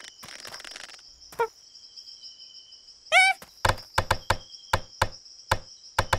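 Cartoon sound effects over a steady high drone of jungle insects. A soft scuffle comes in the first second, and a short squeal bending up and down about three seconds in. Then comes a run of sharp knocks, uneven at first and quicker near the end.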